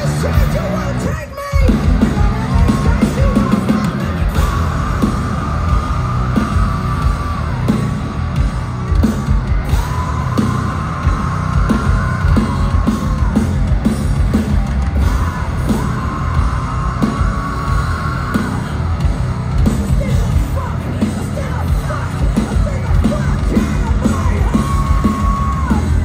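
Live metal band playing loud, heard from within the crowd, with heavy drums and guitar. The band drops out briefly about a second in and then comes back in. Long held high notes recur over the playing, and a voice is yelling.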